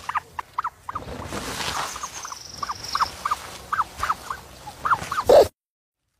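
Short chirping animal calls repeated every third to half second, with a thin high steady trill about two seconds in. A loud burst near the end, then the sound cuts off suddenly.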